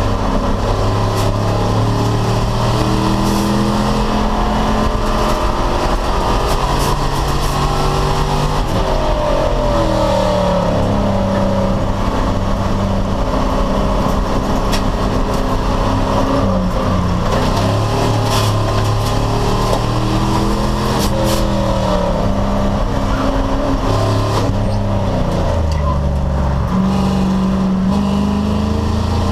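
Race car engine at racing speed, its revs climbing and dropping repeatedly through gear changes.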